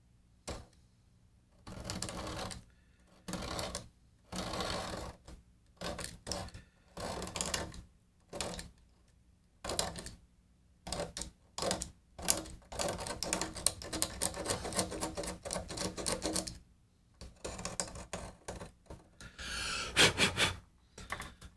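Hobby knife blade scraping old glue from the binding edge of a 1956 Martin guitar, in many short rasping strokes that come in irregular bursts with brief pauses between.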